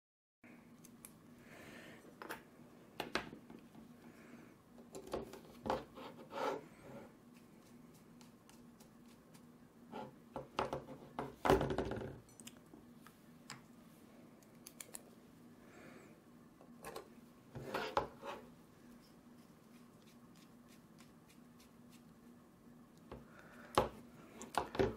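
Small clicks, scrapes and taps of a hex driver and small bolts being handled and screwed into a carbon-fibre quadcopter frame plate, coming in scattered clusters with a few louder knocks.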